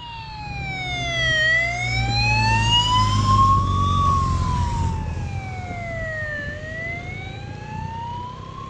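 Escort motorcycle passing close with its siren on, a slow wail that sweeps down and up about every five seconds. The engine rumble peaks as it goes by about three seconds in and then fades while the siren carries on.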